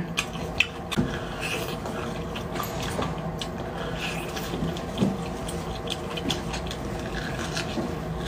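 Wet sucking and slurping of beef bone marrow from a bone held to the mouth, with a few small clicks and smacks.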